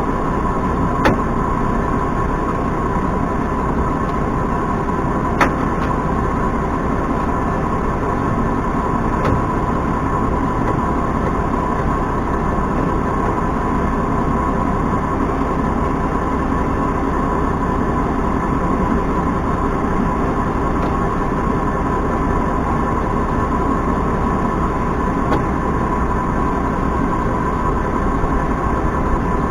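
Farm tractor running steadily while hauling manure, with a steady whine over the engine noise and a few sharp clicks or knocks.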